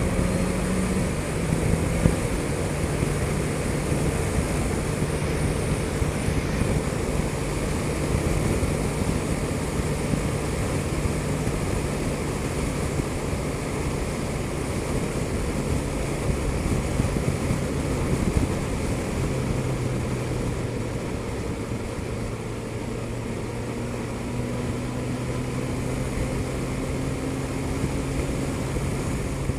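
Suzuki GSX-S1000GT's inline-four engine running at road speed with a steady drone under heavy wind rush, its note stepping down in pitch about two seconds in.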